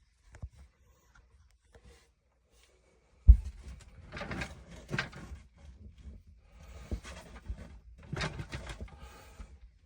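A new 1/3 hp sump pump kicking on with a sudden clunk about three seconds in, then running with a steady low hum and irregular bursts of rushing, splashing noise.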